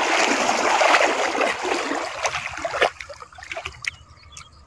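Shallow river water splashing and sloshing around a man wading and grabbing by hand for a fish. About three seconds in there is a sharp knock, and the splashing drops away to faint drips and trickles.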